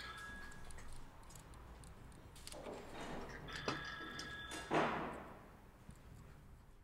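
Hands working on a metal switch panel: small scattered clicks and taps as parts are handled at the toggle switch. A short high ringing tone runs for about a second partway through.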